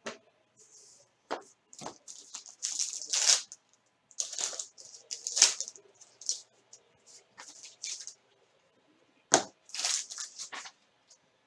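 Trading card pack and cards handled on a table: a run of short scratchy rustles, tears and clicks, with a brief lull just after the eighth second.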